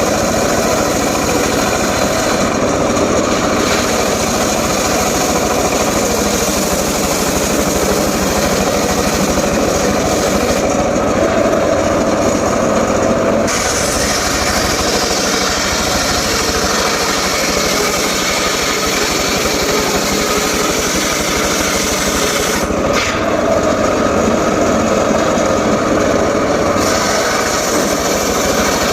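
Homemade circular saw running steadily while cutting mahogany wood. Its sound changes twice, for a few seconds each time, as the load on the blade shifts.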